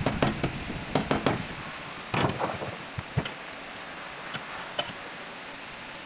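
Several sharp metal knocks and clinks in the first second and a half, then a short scraping rattle, as a driveshaft with its CV joint is handled and laid in a bench vise; a few faint ticks follow, then only steady background hiss.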